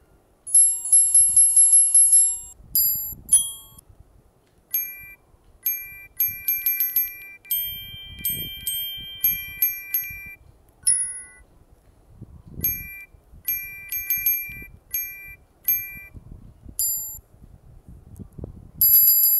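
Key-press sound effects of a custom virtual keyboard theme: each tapped key gives a short, bright chime like a little bell, in quick runs of several taps a second with short pauses between.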